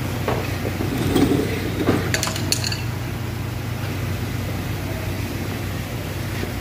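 Steady low mechanical hum, with a brief cluster of light metallic clinks about two seconds in.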